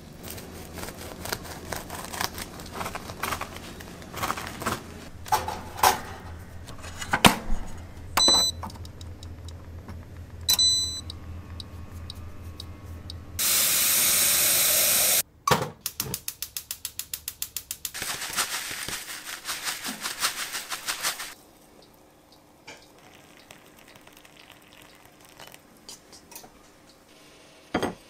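Kitchen sounds: a spatula scraping and clunking as red bean paste is pressed into a plastic container, over a low hum, with two short electronic beeps a couple of seconds apart. About halfway through comes the loudest sound, a rush of water poured from a cast-iron kettle, followed by a run of rapid pulses and another stretch of hiss that stops suddenly.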